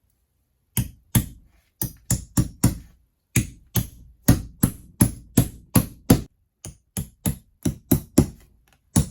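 Hammer driving steel nail-protector plates onto wall studs over electrical wiring: a steady run of sharp strikes, about three a second, starting just under a second in, with brief pauses around three seconds in and near the end.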